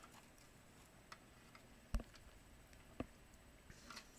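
Faint handling noise from the plastic parts of a disassembled DustBuster hand vacuum, with two sharp clicks about a second apart and a few softer ticks.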